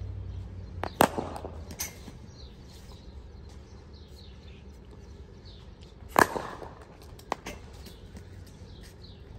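Two sharp cracks of an English willow cricket bat (DSC Krunch 2.0) striking a ball, about five seconds apart, each followed shortly by a lighter knock. The players judge this bat's sound off the middle as very good.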